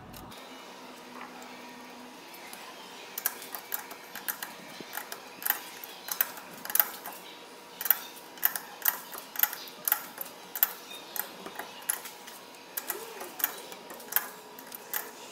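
Irregular sharp metallic clicks and taps, roughly one or two a second, from hand work on a lathe chuck as a workpiece is trued against a dial indicator. They start about three seconds in.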